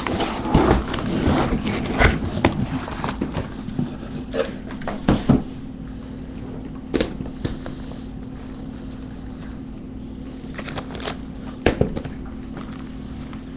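Cardboard trading-card boxes being handled and stacked on a desk: a quick cluster of knocks, scrapes and rustles over the first five seconds or so, then a few single knocks. A steady low hum runs underneath.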